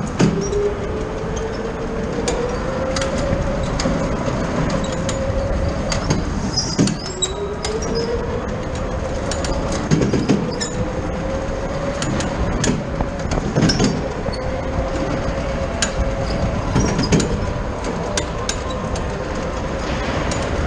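Go-kart motor running under way, its note climbing, dipping once and climbing again with speed, over a constant rumble and rattle of the kart. Scattered sharp clicks and knocks are heard throughout.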